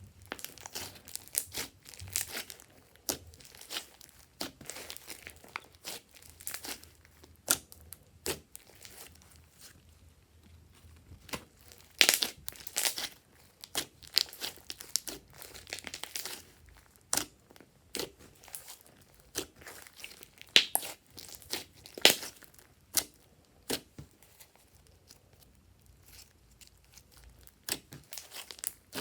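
Glossy slime being squeezed, stretched and folded by hand, making irregular sticky clicks, pops and crackles as air pockets burst. A few pops stand out much louder than the rest.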